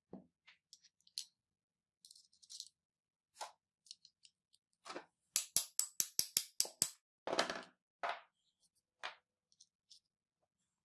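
Hammer tapping a steel socket set over the end of an angle grinder armature's shaft: a quick run of about eight sharp metallic taps in just over a second, about halfway through, followed by a heavier knock. Scattered clinks and knocks of metal parts being handled around it.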